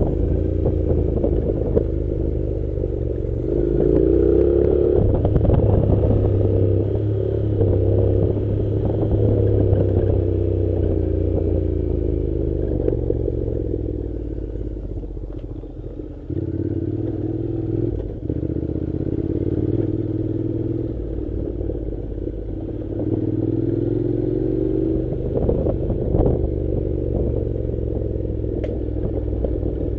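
Honda NC700's 670 cc parallel-twin engine running as the motorcycle is ridden over a dirt road, its note rising and falling with the throttle and easing off briefly about halfway through. Occasional knocks and rattles come through as well.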